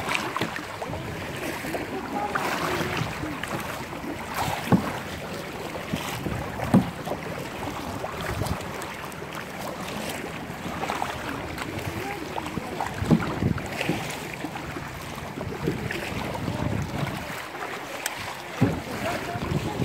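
Canoe paddles stroking through choppy lake water, with steady splashing and lapping and wind buffeting the microphone. A few short, sharp knocks stand out, the loudest about 5, 7, 13 and 18 seconds in.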